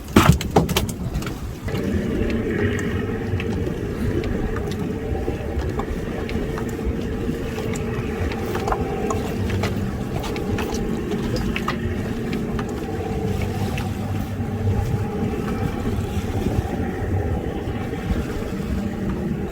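A small boat's motor running steadily, coming in about two seconds in after a few sharp knocks.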